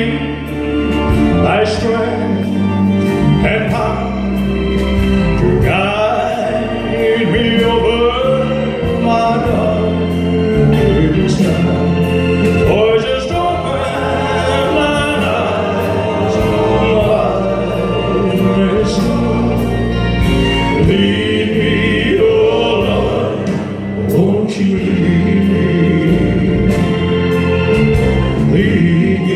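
Male singer performing a slow song live, with acoustic guitar and band accompaniment.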